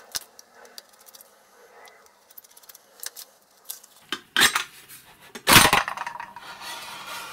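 Sheet-metal instrument case being handled and slid off its chassis: light metal clicks and taps, then two loud metal scrapes about four and five and a half seconds in, the second the loudest, followed by softer rubbing as the case comes away.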